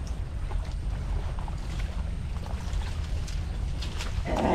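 Low wind rumble buffeting the microphone, with faint scattered taps and rustles. A brief voice comes in near the end.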